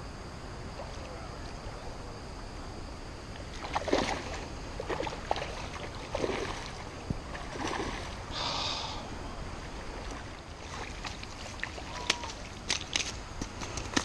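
Steady rush of shallow creek water, with splashing and sloshing in the water a few seconds in. Sharp clicks and crunches come near the end.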